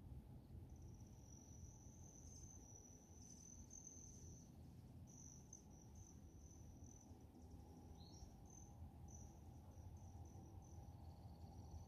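Faint, high-pitched insect trill, steady with short breaks, over a low background rumble; a second, slightly lower trill joins near the end.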